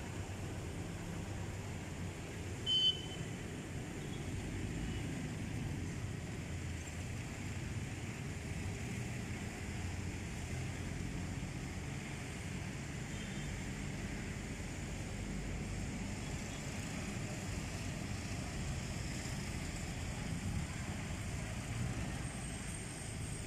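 Steady low rumble of street traffic around a town square, with one short sharp high sound about three seconds in.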